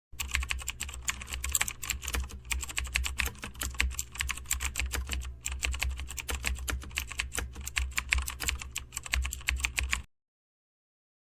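Computer keyboard typing: a fast, irregular run of key clicks with a steady low hum beneath. It stops about a second before the end.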